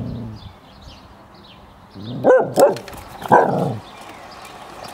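Dalmatian barking: a couple of quick barks about two seconds in, then another, longer one about a second later.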